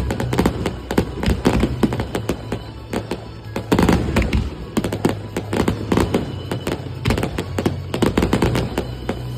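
Fireworks finale barrage: a dense run of rapid cracks and bangs from shells bursting in quick succession, heaviest about four seconds in, with music playing underneath.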